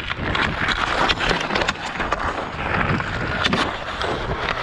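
Ice skate blades scraping and carving over outdoor ice, with a few sharp clicks of the hockey stick on the puck and ice.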